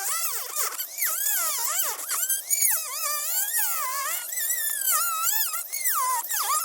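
Small high-speed power tool motor whining as it cuts into a wheel hub to free the metal inner hex, its pitch dipping and rising over and over as the load changes.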